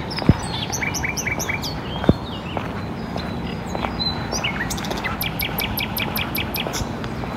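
Songbirds chirping and calling, with a short run of four notes about a second in and a fast even series of about five chirps a second in the second half, over a steady low background noise. Two sharp clicks, about a third of a second in and about two seconds in, stand out as the loudest sounds.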